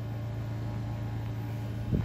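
Electric bench grinder running freely with a steady hum, no blade against the wheel yet. A short low thump comes near the end.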